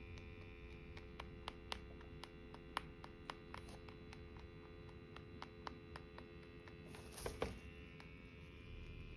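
Faint steady electrical hum, with scattered small clicks through most of it and one short, soft noisy burst about seven seconds in.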